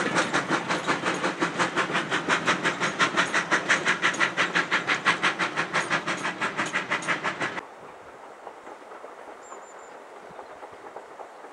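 Ivatt 2MT two-cylinder steam locomotive working hard, its exhaust beating quickly and evenly at about five or six chuffs a second. About seven and a half seconds in, the sound cuts off suddenly. A quiet outdoor background follows, with a few faint high chirps.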